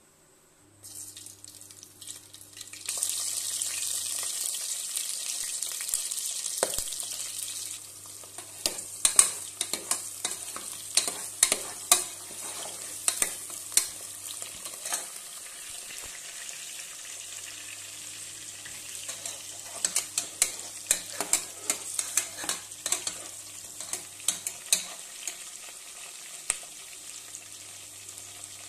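Sliced onions and green chilli frying in hot oil in a pressure-cooker pot, the sizzle growing loud about three seconds in. A metal ladle then stirs them, scraping and clicking against the pot many times while the oil keeps sizzling.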